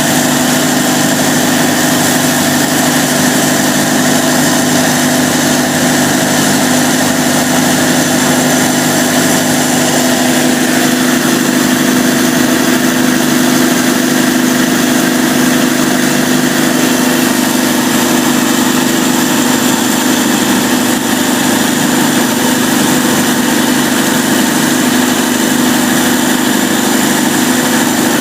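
Cummins KTA38-G4 V12 diesel generator set running steadily at constant speed during a load test, with a loud, even drone and no change in pitch.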